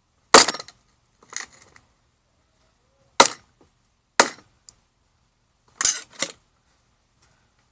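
Six sharp, hard clacks of a mobile phone being knocked against a hard surface, irregularly spaced, the first the loudest and the last two as a quick pair.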